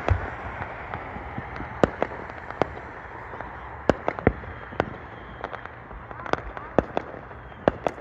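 Fireworks going off: scattered sharp bangs and pops, about a dozen at irregular intervals, over a steady background hiss.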